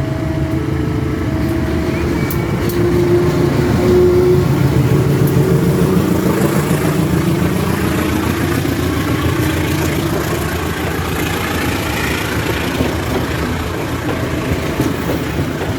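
CC203 diesel-electric locomotive passing close by with its engine running hard, loudest about four seconds in, followed by the steady rumble of the train rolling past.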